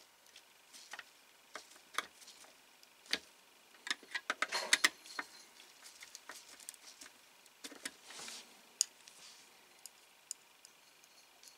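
Small screwdriver turning tiny screws into a model car body: scattered light clicks and ticks, busiest about four to five seconds in, with a brief rustle about eight seconds in.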